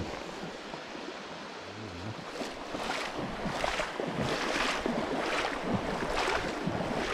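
Legs in waders pushing through shallow sea water, a swish of water with each stride, starting about two and a half seconds in and coming about one to two a second, over light wind on the microphone.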